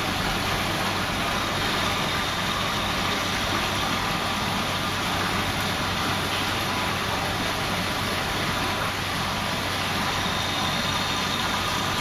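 Steady rush of water pouring from an inlet pipe into a crowded koi tank, with a low steady hum underneath.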